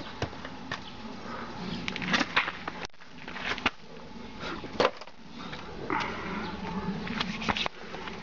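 A bare fist hammering a steel nail into a wooden plank: a series of about eight irregular sharp knocks, the loudest a little under five seconds in.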